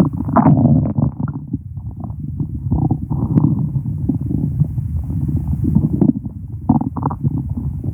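Stomach growling: a continuous low rumble with short, higher gurgles about half a second in, around three seconds in, and again near the end.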